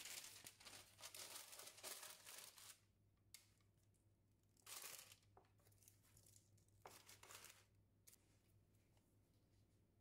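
Quiet rustling and crinkling of a paper sheet lining a plastic storage box as buns are packed in: a long stretch of rustling over the first three seconds, then two short rustles around five and seven seconds in.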